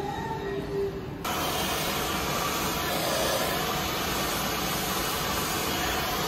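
A steady hiss of rushing air starts suddenly about a second in, loud and even, after faint background music.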